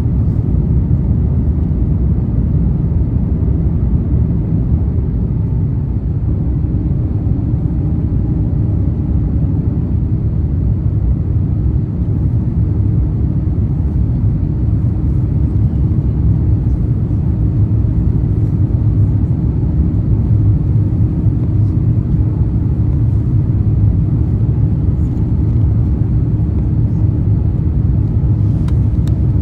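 Steady low rumble inside the cabin of an Airbus A350-900, from its Rolls-Royce Trent XWB jet engines and the airflow around the fuselage. A faint steady hum comes in about seven seconds in.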